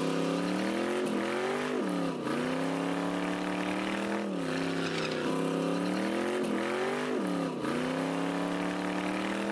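Car engine held at high revs during a burnout, its pitch sagging and recovering about once a second, over the noise of the spinning rear tire.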